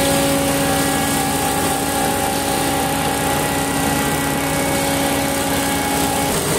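An engine running steadily with an unchanging hum; its steady tone drops out about six seconds in while the background noise goes on.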